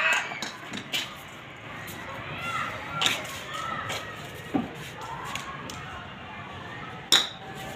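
Children's voices calling faintly during a backyard cricket game, with a few sharp knocks, the loudest about seven seconds in.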